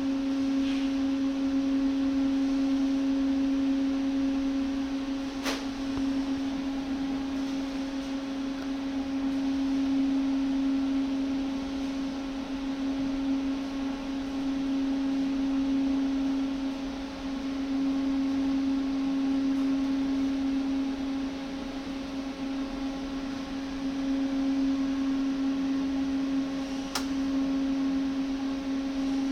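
Panasonic YD-350GB1 digital welding power source switched on and idling, giving a steady hum, as for a power-on check. Two sharp clicks stand out, one about five seconds in and one near the end.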